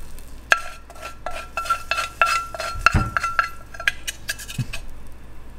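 A spatula scraping and tapping sautéed green beans out of a stainless steel saucepan into a stainless steel lunch box: a quick run of clinks with a ringing metallic tone, and a dull knock about three seconds in. The clinking stops about four seconds in.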